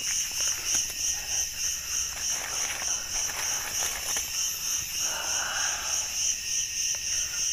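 Insects calling in a steady, high-pitched pulsing drone.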